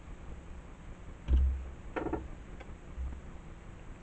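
Handling noise from a plastic bottle cap and wires being worked by hand: a low thump a little over a second in, a short rattle of small clicks about two seconds in, and a softer low bump about three seconds in.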